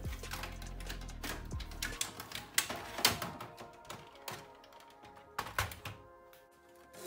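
Background music, over a clatter of clicks and knocks from the plastic front panel of a Sony MHC-VX77 hi-fi being pulled off its chassis and set down on the bench, with several sharp knocks between about two and six seconds in.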